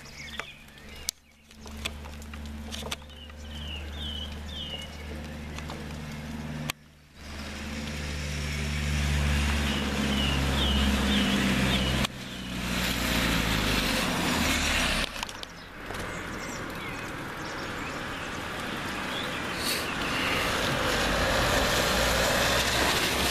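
Cars running on a wet road: a steady low engine hum, then from about halfway the hiss of tyres on wet tarmac grows. A few birds chirp briefly, and the sound cuts off and resumes abruptly several times.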